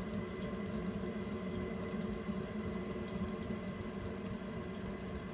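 Buderus U042 wall-mounted gas boiler running with a steady mechanical whir and hum.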